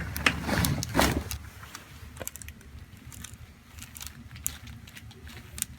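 Handling noises on a chiropractic treatment table: a few sharp clicks and knocks in the first second or so, then fainter scattered clicks and rustling as the patient is moved.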